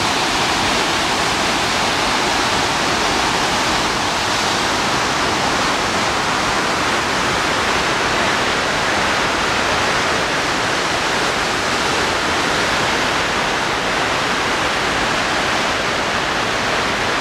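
The Bhagirathi river rushing through a rock gorge and pouring over a waterfall into a churning pool: a loud, steady roar of water.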